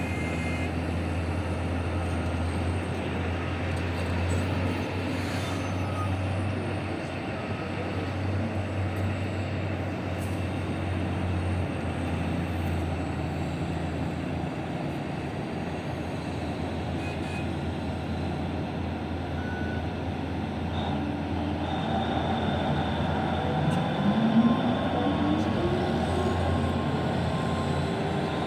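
Heavy diesel mining machinery running steadily, a deep engine drone under clanking and grinding. About three-quarters of the way through, an engine revs up in a rising sweep.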